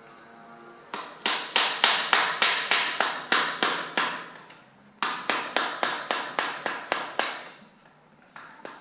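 Hammer striking a flat-head screwdriver set in a drilled hole, knocking a stripped bicycle crank and bottom bracket round to loosen them, with rapid metal strikes about three or four a second. There are two long runs of strikes with a short pause between, and the striking starts again near the end.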